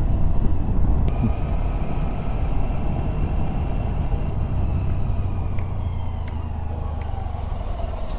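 Steady low rumble of wind and road noise from riding a Honda Activa 6G scooter along a highway, easing off slightly in the second half.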